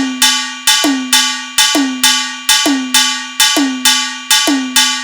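Khanjari percussion played alone as a sound check: sharp, ringing metallic strikes in an even loop of about two a second, with a deeper tone that drops in pitch on every second beat.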